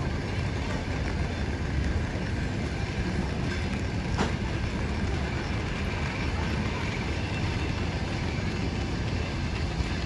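Russian Railways passenger train at the platform, a steady low rumble with one sharp click about four seconds in.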